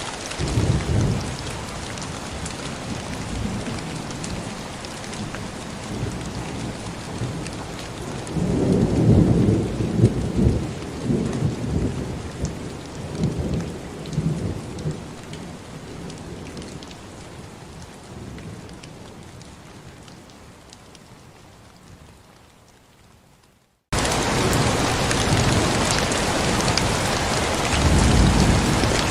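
Steady heavy rain with thunder rumbling: a short rumble about a second in, a longer, louder roll around the middle, and another near the end. Partway through, the rain fades away almost to nothing, then cuts back in suddenly and louder, as at a loop or track join.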